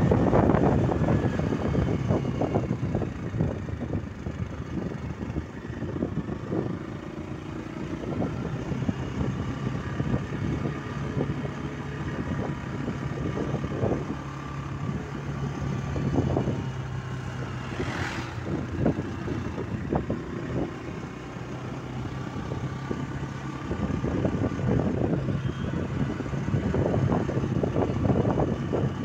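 Motor scooter engine running steadily while riding, with gusts of wind on the microphone that are strongest near the start and again near the end.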